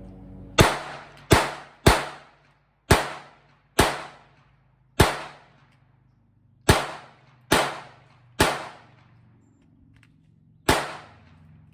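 Ten gunshots fired at an uneven pace over about ten seconds, each a sharp crack that dies away quickly.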